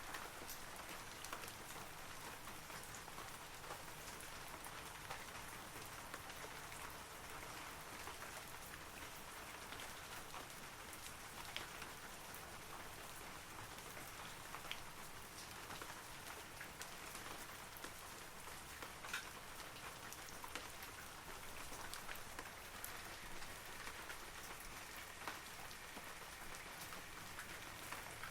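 Steady rain falling on forest trees, an even patter with distinct single drops ticking now and then.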